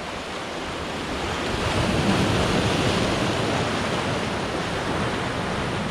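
Sea waves washing against a rocky shore, one surge building up about a second and a half in and slowly easing, with wind buffeting the microphone.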